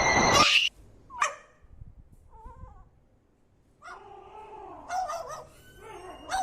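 A cat meowing in drawn-out calls that rise and fall in pitch, with a short call about a second in and longer ones in the second half. Before the calls, a loud noisy sound cuts off abruptly about half a second in.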